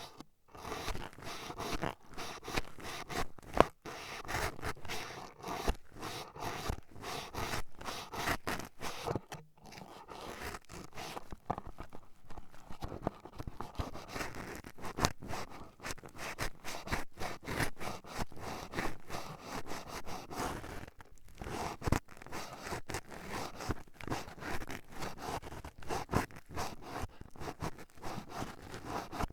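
Toothpicks jabbing and scraping at a microphone's ear, close up: a dense, irregular run of scratchy taps and crunches with a few sharper clicks.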